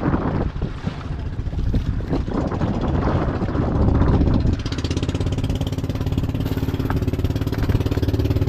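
A small boat's engine running, with wind and water noise over the first half; from about halfway in, the engine's even, pulsing hum stands out clearly.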